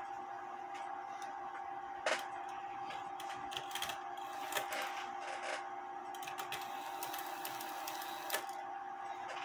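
Regula 701 cuckoo clock movement running through a cycle, with scattered sharp mechanical clicks over a faint steady hum.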